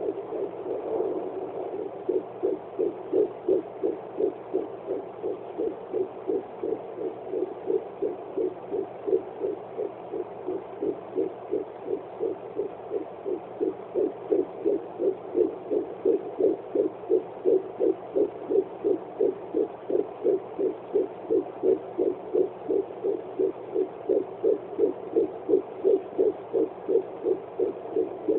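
Heartbeat of a 12-week fetus picked up by a fetal doppler and played through its speaker: a fast, even run of whooshing pulses, settling into a clear rhythm after the first couple of seconds.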